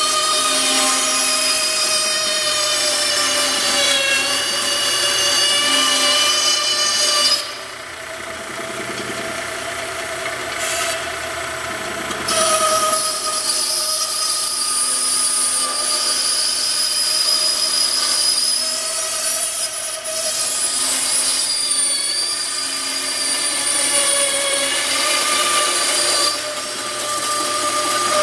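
Benchtop band saw running and cutting through a polymer AK-type magazine with steel-reinforced feed lips, a steady pitched whine whose pitch dips now and then. It drops quieter for a few seconds about a quarter of the way in, then comes back up.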